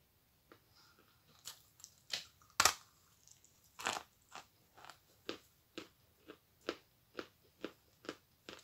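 A large lump of Akbulak chalk bitten and chewed close to the microphone: dry crunches, the sharpest about two and a half seconds in. After that come steady chewing crunches, about two a second.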